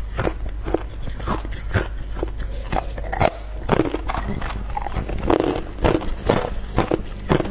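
Hard clear ice being bitten and crunched between the teeth: a quick run of sharp cracks and crunches, about two or three a second.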